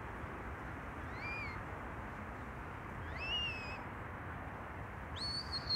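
Sheepdog handler's whistle commands to a working Border Collie: a short note that rises and levels off about a second in, a longer rising note at about three seconds, then a higher, held note starting near the end.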